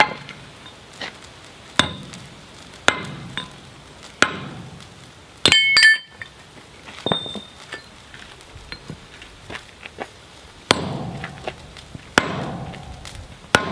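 Hammer blows on a steel drift being driven into the hot square hardy hole of a striking anvil: separate sharp metal strikes about every second or so, with a pause in the middle. About five and a half seconds in comes one bright ringing clang, the loudest blow.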